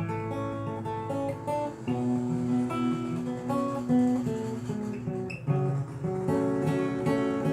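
Acoustic guitar played fingerstyle: a picked melody over separate low bass notes.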